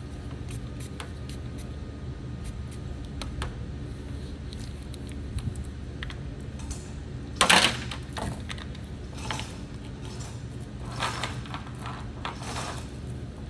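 Glue-pull dent-repair rig on an aluminium liftgate being worked by hand: scattered small clicks and taps from the hook, chain and puller tab, one loud sharp noise about halfway through, and a few shorter scraping or rattling noises near the end, over a steady low hum.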